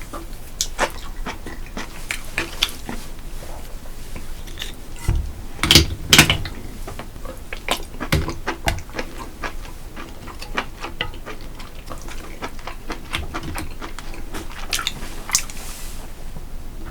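Close-miked eating sounds: steady chewing with many short wet mouth clicks, and a brief cluster of louder sounds about five to six seconds in.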